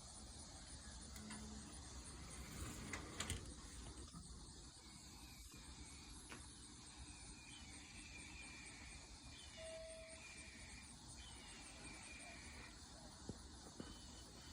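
Faint steady high chirring of insects, with a couple of soft clicks about three seconds in.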